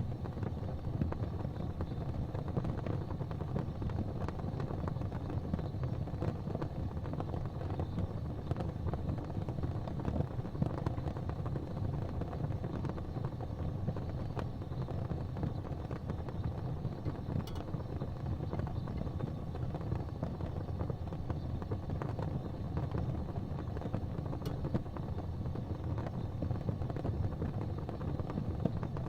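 Gas fireplace flames burning with a steady low rumble, with a few faint ticks.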